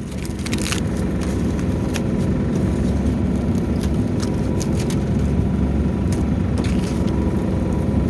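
Gleaner K combine running while harvesting corn: a steady engine and threshing-machinery drone with scattered short clicks, growing a little louder in the first second.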